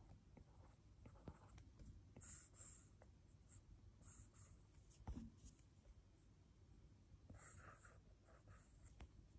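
Faint scratching strokes and taps of a stylus drawing on an iPad's glass screen, in short separate strokes, with one louder knock about five seconds in.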